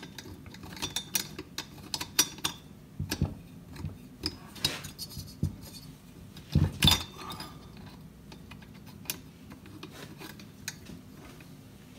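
Light metallic clicks and clinks of a hand tool turning and seating screws on a Jonsered 625 chainsaw's engine, with two louder knocks about seven seconds in. Sparse ticks near the end.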